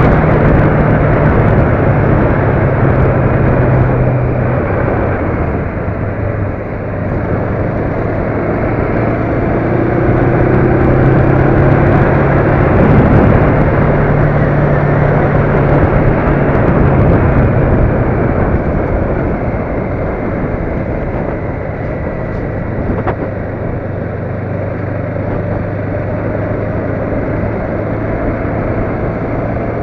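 Vehicle engine running steadily under heavy road and wind noise while driving. The engine note dips around four seconds in and picks up again around ten seconds.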